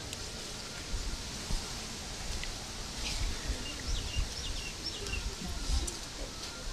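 Outdoor background with a few short, high bird chirps in the middle, over a low, uneven rumble and a faint hiss.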